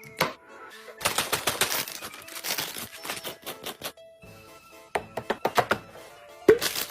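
Rapid clicking, tapping and clattering of items being handled and set in place while restocking a mini fridge, in two runs with a short pause between and a sharp knock near the end. Soft background music plays underneath.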